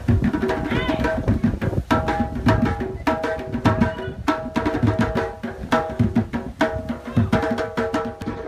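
Background music: percussion with a steady beat, sharp hits a little under a second apart over held pitched notes.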